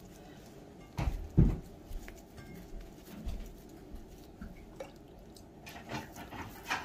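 Wet hands pressing and rolling a soft ball of cooked semolina dough, with faint squishing sounds. There are two thumps about a second in.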